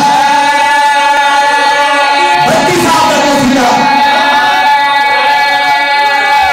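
Male voices chanting a devotional Urdu/Punjabi qasida over a steady, unbroken drone. The drone is heard alone at first, and the chanting voices come in about two and a half seconds in.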